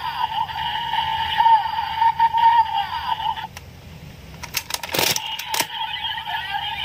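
Mammoth Vistamp toy's electronic sound effects playing through its small speaker, a steady warbling tone that cuts off about halfway through. A few sharp clicks follow, then the electronic sound starts again near the end.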